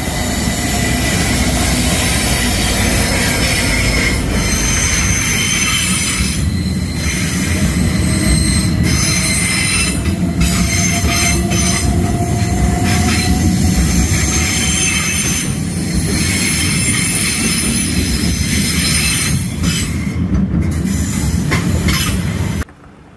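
Class 66 diesel locomotive and its loaded freight wagons passing close by: a continuous heavy rolling rumble with steady high-pitched wheel squeal. The sound cuts off suddenly near the end.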